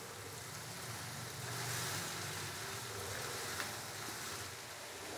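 Chopped onions, tomatoes and green chillies sautéing in oil in a karahi: a soft, steady sizzling hiss as they fry, with one faint tick a little past halfway.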